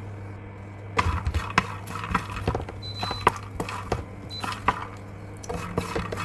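Makhana (lotus seeds) tipped into a frying pan and stirred with a spatula: a clatter of light, irregular clicks and scrapes against the pan, starting about a second in.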